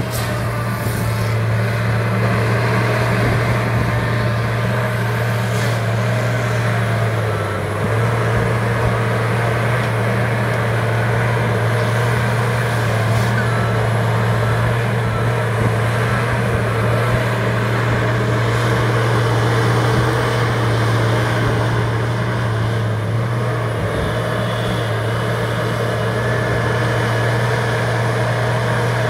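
Feller buncher's diesel engine running steadily, a loud deep drone that dips briefly about seven seconds in.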